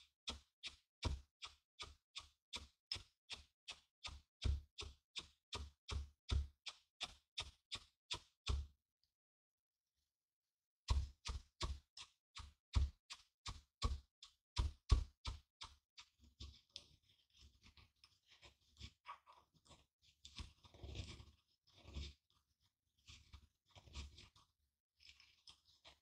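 Pestle pounding dark seeds in a mortar, about three sharp crunching strokes a second, with a two-second pause after about nine seconds before the strokes resume. In the last part the pounding gives way to softer, irregular grinding and crunching.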